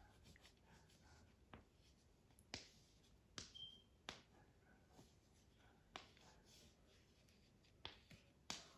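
Near silence with a handful of faint, sharp ticks and scratches from a drawing tool stroking across a surface, and one brief faint squeak about three and a half seconds in.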